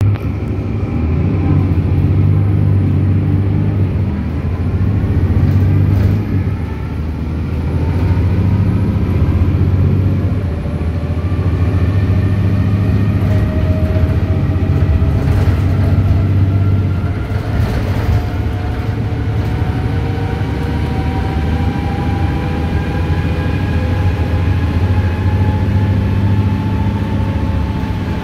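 VDL Citea CLF 120 city bus's engine pulling hard under kickdown, heard from inside the passenger saloon: a deep drone that swells and eases a few times as the gearbox shifts. From about halfway, a whine rises steadily in pitch as the bus gains speed.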